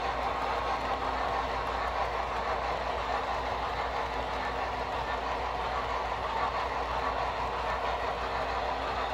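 HO scale model freight train rolling along the track: a steady whirring rumble of wheels on rails, with no beat or change in pace.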